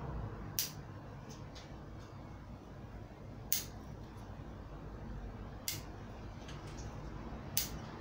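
Bonsai scissors snipping elm twigs: four sharp snips about two seconds apart, with a few fainter clicks in between.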